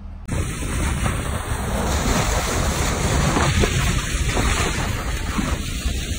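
Wind buffeting the microphone over water rushing along the hull of a moving boat: a steady rough rush that cuts in suddenly just after the start.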